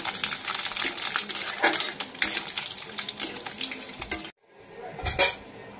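A metal spatula stirs and scrapes in an aluminium kadai as panch phoron, bay leaves and dried red chillies fry in hot oil, with dense crackling and clinking. The sound cuts out abruptly about four seconds in, and a single clank follows near the end.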